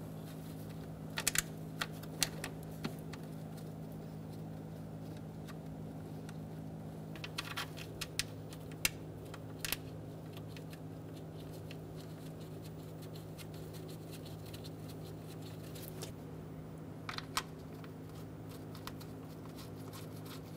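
Scattered light metal clicks and taps of bolts being set and started by hand into the engine, in a few small clusters, over a steady low hum.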